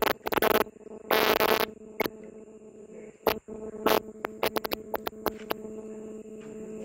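Fish fry splashing and popping at the water surface as a crowded shoal churns, heard as many irregular sharp clicks and two louder splashes in the first two seconds, over a steady electrical hum.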